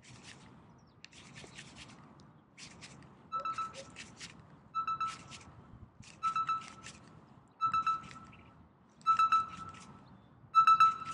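Suspense sound effect: a short burst of clicks with a beeping tone repeating about every second and a half, getting louder toward the end.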